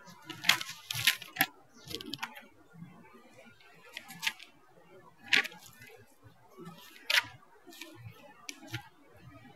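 Irregular short scratchy clicks and scrapes, about ten of them, the loudest about a second in: writing strokes.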